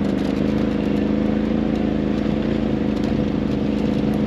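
Side-by-side UTV engine running at a steady speed as the vehicle drives along a dirt trail, with a fast low pulsing under a steady engine tone and a constant hiss of wind and trail noise.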